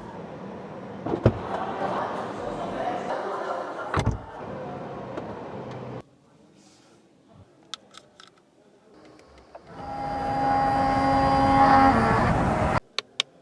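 Car sounds in several edited clips: a steady noisy rush with two sharp knocks, then a quiet stretch with a few light ticks, then a rush that grows louder with steady whining tones before cutting off suddenly. Three sharp clicks come near the end.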